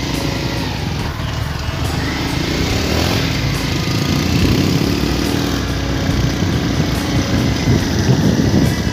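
Small motorbike engine running steadily while being ridden, heard from the rider's seat under a continuous rumble of road and air noise.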